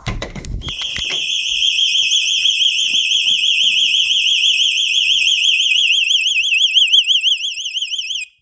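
Vivint home alarm system siren sounding a loud, high-pitched rapid warbling tone, set off by the basement door opening while the system is armed; it cuts off suddenly near the end as the system is disarmed.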